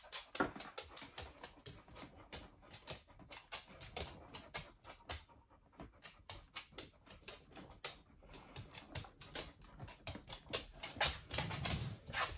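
Rapid, irregular small clicks and rustles, several a second, of decor being pushed and wiggled into the soil substrate of a clear tarantula enclosure: a skull ornament and bark knocking against the enclosure wall and scraping in the substrate, a little louder near the end.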